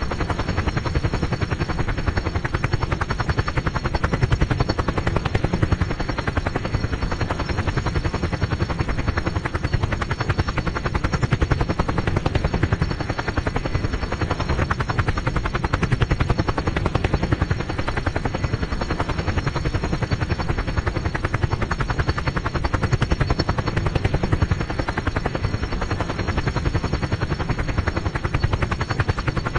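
Helicopter hovering: steady rotor chop with engine noise, unchanging in level.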